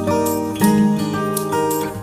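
Background music: an acoustic guitar playing plucked notes and chords.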